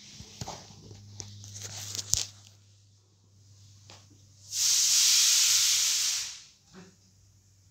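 A few clicks and knocks of handling, then about four and a half seconds in a loud, even hiss that lasts nearly two seconds and fades out.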